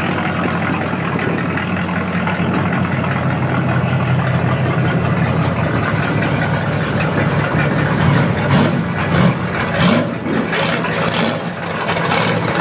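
Drag-racing pickup truck's engine idling as it backs up slowly to the start line after a burnout, with a few short, sharp bursts of louder noise in the last few seconds.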